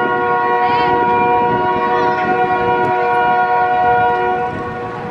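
Canadian Pacific locomotive's multi-chime air horn sounding one long blast: several steady notes held together as a chord, dropping off near the end.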